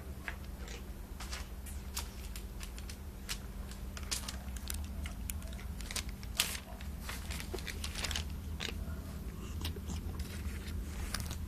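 A cat chewing its food: irregular sharp crunching clicks, a few each second, over a steady low hum.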